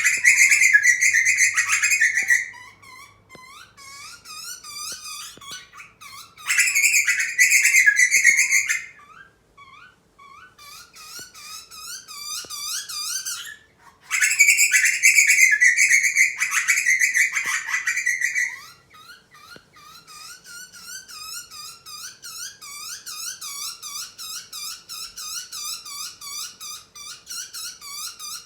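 Butcherbirds calling at a feeding, typical of a chick begging for food: a long run of short, squeaky chirps that quickens to about four or five a second near the end, broken three times by loud, harsh, buzzy calls lasting a few seconds each.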